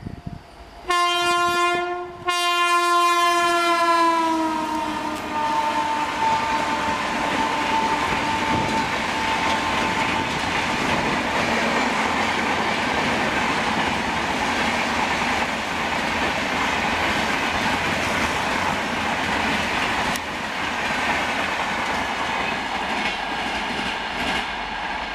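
WAP-7 electric locomotive's air horn sounding two long blasts, the second dropping in pitch as the locomotive passes. It is followed by the steady rolling noise and wheel clatter of a passenger train running past at speed.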